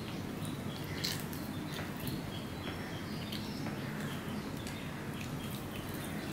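Close-up eating sounds: chewing with wet mouth clicks, and fingers squishing rice mixed with fish curry on a steel plate. A steady low hum runs underneath, with small birds chirping in the background.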